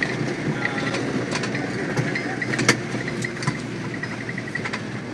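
Land Rover Defender driving along, heard from inside the back: steady engine and road noise with the body and load rattling and knocking, one louder knock about two and a half seconds in.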